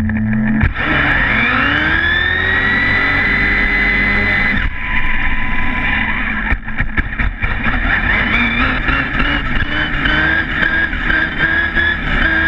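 Electric RC buggy's Tenshock x802 brushless motor and drivetrain whining up in pitch as it accelerates hard, with tyre noise on asphalt. The whine rises and levels off, breaks off suddenly, gives way to a run of sharp knocks, then climbs again in a second acceleration.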